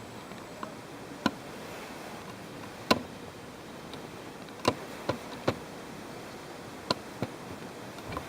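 A handful of sharp clicks and small knocks at irregular intervals, about eight in all, over a steady low hiss.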